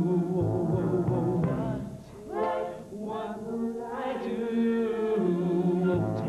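A male lead singer sings into a microphone over a group of backing singers holding sung harmonies, with a bass line underneath: a live song from a stage musical.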